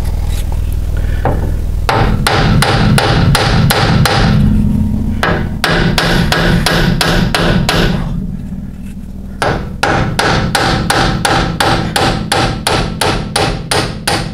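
Hammer striking a rusted rear hub on a Land Rover Defender 90 axle to drive it off: quick, ringing metal-on-metal blows, about three a second, starting about two seconds in, with a brief pause past the middle. A steady low hum runs underneath.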